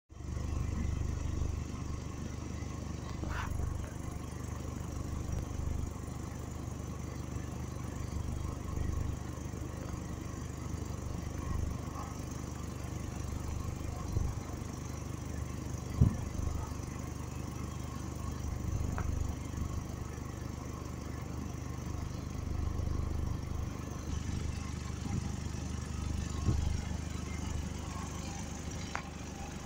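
Diesel locomotive engine idling with a steady low rumble, a few faint clicks over it and one sharper knock about halfway through.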